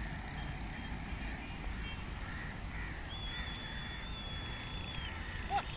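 Crows cawing faintly over a steady low rumble. A thin, steady high whistle holds for about two seconds midway, and a short sharp sound comes just before the end.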